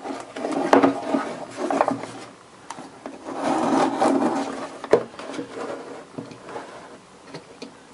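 Utility knife blade scraping and sawing through the cardboard of a postal box in uneven strokes, with a few sharp clicks. The knife is not sharp enough, so it drags through the card rather than slicing cleanly.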